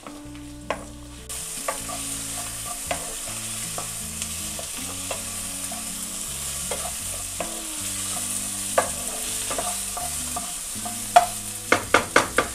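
Tomatoes, shallots and dried red chillies sizzling in oil in a nonstick pan, with a spatula stirring and pressing them so that it scrapes and knocks on the pan now and then. The sizzle sets in about a second in, and near the end comes a quick run of taps as the tomatoes are mashed down.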